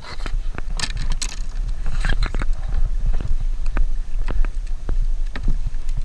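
Wind buffeting the microphone with a steady low rumble, under scattered knocks, clicks and rattles from a landing net and fishing gear being handled against a plastic kayak.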